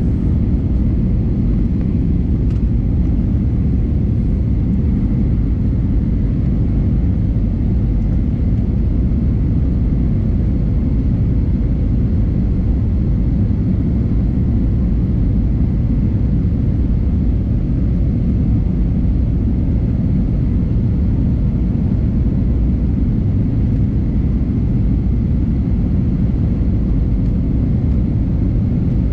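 Steady cabin noise inside an Airbus A320neo heard from a window seat: a constant low rumble of its Pratt & Whitney geared turbofan engines and airflow, with a faint steady hum above it.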